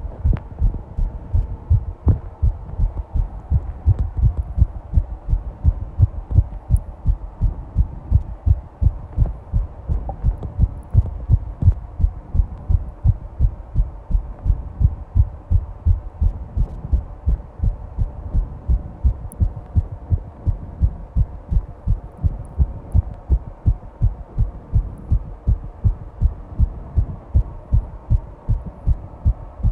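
Fast heartbeat: a rapid, even run of low thuds.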